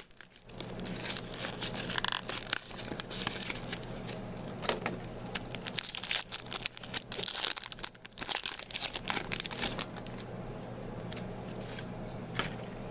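Foil Pokémon booster pack wrapper crinkling and tearing open, a dense run of irregular crackles that settles down over the last few seconds.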